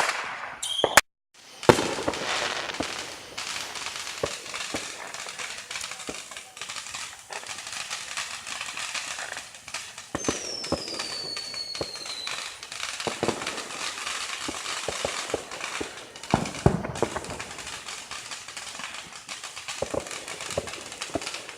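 Fireworks going off: repeated bangs and sharp pops over continuous crackling, with a falling whistle about ten seconds in.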